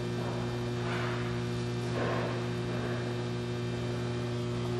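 Steady electrical mains hum, a low buzz with a few even overtones.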